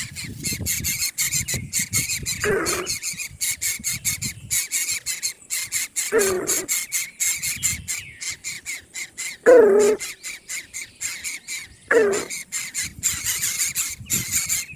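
Short, loud, falling squeals from a bird, about five of them a few seconds apart, over a rapid patter of clicks. These are distress cries from a coucal attack on a chicken chick.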